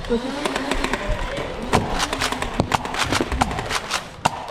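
Rapid, irregular sharp clicks and knocks of Nerf blasters firing and foam darts striking, with short shouted voices near the start and about two seconds in.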